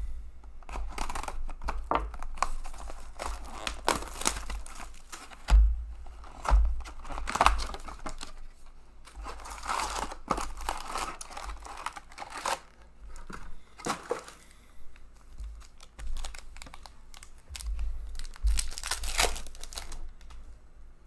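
A sealed SP Authentic hockey card box being torn open and its stack of foil card packs crinkling as they are handled, with a few dull thumps on the table.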